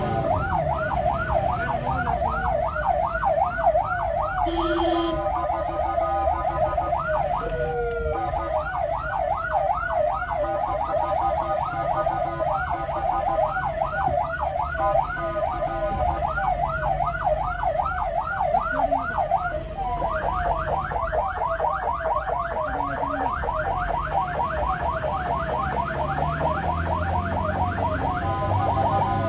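Ambulance siren on a rapid yelp, sweeping up and down about three or four times a second, switching to a faster yelp about two-thirds of the way through. A vehicle horn sounds briefly about five seconds in.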